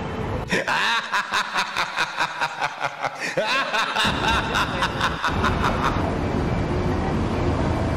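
A burst of snickering laughter in quick, even pulses, about four a second, lasting about three seconds, followed by steady street traffic noise.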